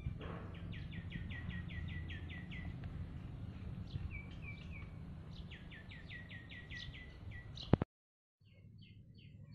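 A bird calling in rapid runs of short, falling chirps, about five a second, in three bursts, over a steady low rumble. Near the end a sharp click comes and the sound cuts off suddenly.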